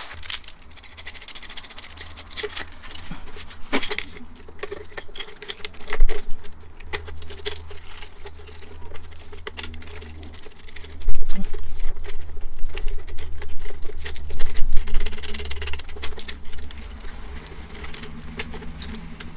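Irregular metallic clinks and clatter of a two-piece coil spring compressor's steel hooks and threaded rods being handled and fitted onto a strut's coil spring. The loudest clatter comes about six seconds in and again from about eleven to fifteen seconds.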